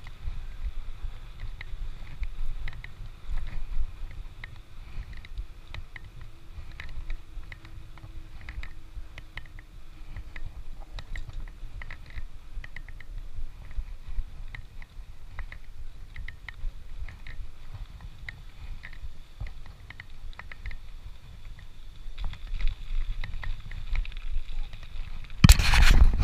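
Bicycle riding noise: a steady low rumble of wind and tyres on the road, with frequent small rattling clicks, and one loud burst of noise near the end.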